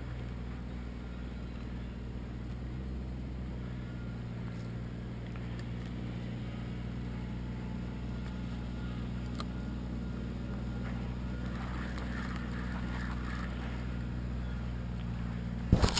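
A steady low motor hum, with a few sharp knocks near the end.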